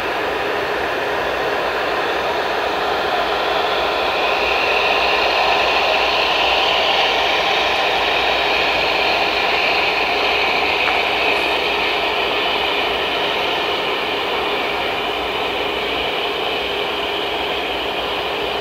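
Boeing 757-200's two turbofan engines running as the freighter rolls slowly onto the runway: a loud, steady jet noise with a high whine. The whine grows strongest about a quarter of the way in and then slowly eases.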